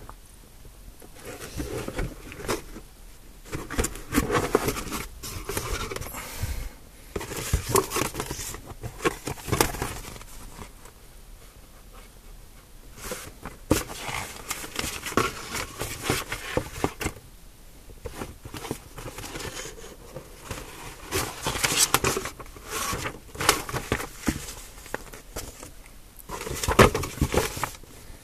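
Cardboard box and plastic packaging being handled: irregular rustling, crinkling and scraping with occasional sharp taps as the box is opened and the paper instruction manual lifted out. The loudest handling comes near the end.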